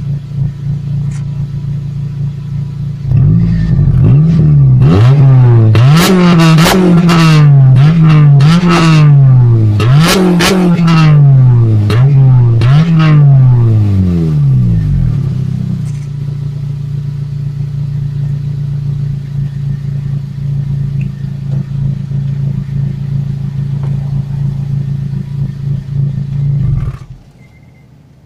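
Stock 2009 Honda Civic Si's 2.0-litre four-cylinder engine with its factory exhaust, idling, then free-revved in about eight quick blips for some twelve seconds, settling back to a steady idle and cutting off suddenly near the end as it is switched off.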